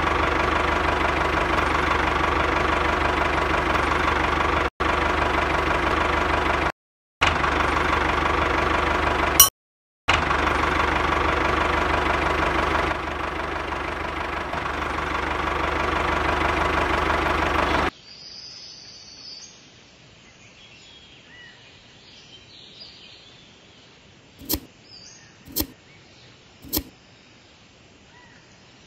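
Small battery-powered electric motor of a homemade toy tractor running with a steady whine, cut off abruptly a few times and stopping about two-thirds of the way through. After that, faint bird chirps and three sharp clicks near the end.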